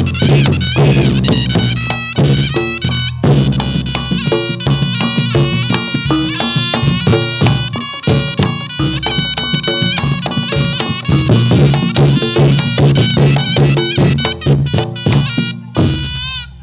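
Reog Ponorogo gamelan accompaniment for a jathilan dance: a shrill reed melody weaving over rapid drumming and struck percussion.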